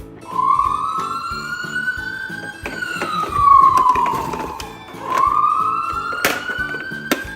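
Electronic wailing siren of a toy ambulance, sweeping slowly up in pitch, back down, then starting to rise again, over background music. Two sharp clicks come near the end.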